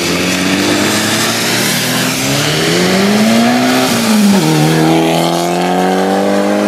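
Mitsubishi Lancer Evolution 6.5's turbocharged four-cylinder engine accelerating hard past on a wet circuit. The revs climb, drop sharply at a gear change about four seconds in, then climb again, over a steady hiss of rain and spray from the wet tyres.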